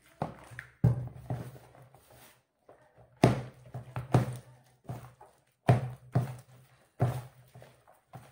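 A hand mixing and pressing chapati dough in a plastic basin, making irregular dull thumps about once or twice a second as it pushes the wet dough against the basin.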